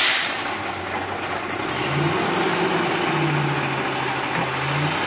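Front-loading garbage truck lifting a dumpster over its cab. A burst of hiss comes at the very start. The engine revs up about two seconds in under the lift, with a steady high whine above it.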